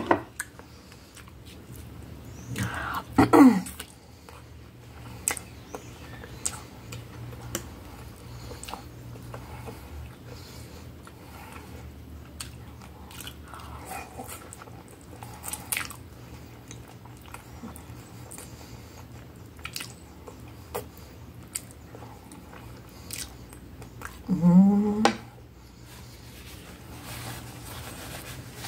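Close-miked eating of spaghetti: chewing, lip-smacking and slurping, with many small wet mouth clicks. Two louder, short sliding sounds come about three seconds in and a few seconds before the end.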